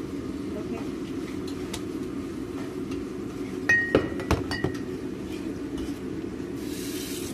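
Kitchenware clinking: four or five quick glassy clinks of a bottle and dishes about four seconds in, one ringing briefly. Under it runs the steady hum of the kitchen range hood, with a short hiss near the end.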